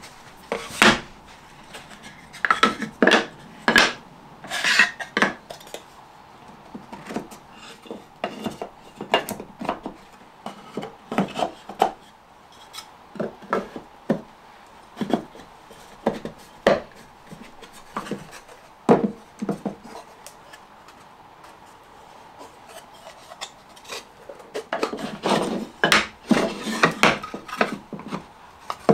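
Thin sycamore box panels being handled and dry-fitted together on a table top: irregular light wooden knocks and clacks as the pieces are set down and butted together, with some rubbing between them. There is a quieter spell about two-thirds of the way through, then a busy run of knocks near the end.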